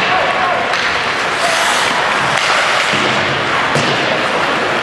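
Ice hockey game sound in a rink: a steady wash of noise with distant voices, a few sharp knocks, and a brief scraping hiss about a second and a half in.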